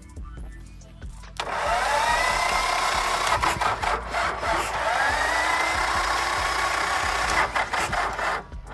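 Electric starter motor cranking a diesel engine, a whine that rises as it spins up. It starts about a second and a half in, rises again a few seconds later, and stops near the end.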